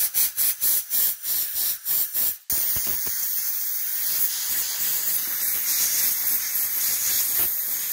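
Compressed-air blow gun blasting into the ports of a cleaned EGR valve to clear out grit and loose debris. It gives rapid short bursts, about five a second, then about two and a half seconds in it settles into one steady hiss.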